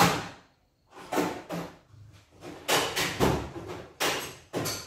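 A string of sharp metallic clanks and clatters, about seven in all, of hand tools being rummaged through and knocked together while someone searches for a tool.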